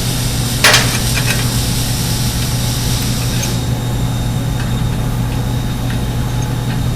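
Steady low machine hum, with a single sharp knock about a second in.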